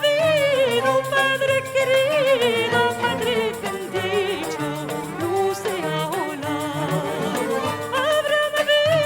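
Sacred music: a solo voice sings long, ornamented notes that waver and bend, over instrumental accompaniment with a steady pulse of short plucked or struck notes.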